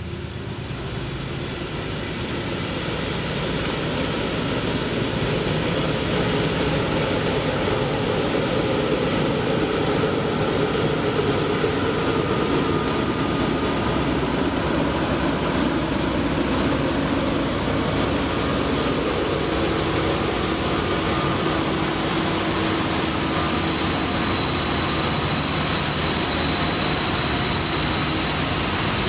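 HO-scale model diesel locomotives running up a grade with a steady engine drone that grows a little louder over the first few seconds as the lead units pass, along with the rolling of the coal train's cars.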